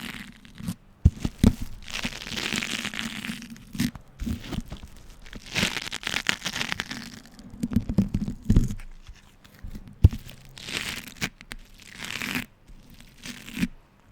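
Beeswax food wraps being crumpled and pulled apart by hand, the sticky waxed cloth crinkling and crackling in uneven swells of about a second each, with sharp clicks and pops as it peels off itself.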